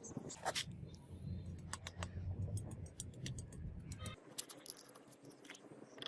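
Small metal pieces clinking and tapping in irregular light clicks, over a low hum that stops suddenly about four seconds in.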